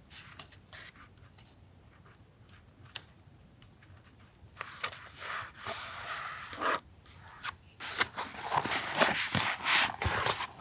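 Paper being handled for a collage: a few light taps and ticks, then from about halfway on, dense paper rustling in quick bursts.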